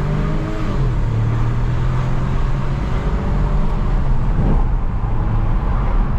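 Volkswagen Virtus 1.0 TSI turbo three-cylinder engine pulling under acceleration through its stock exhaust. The car is ECU-remapped, with a downpipe replacing the catalytic converter and the original muffler still fitted. It is a steady engine drone whose pitch dips briefly near the start, then holds and slowly climbs.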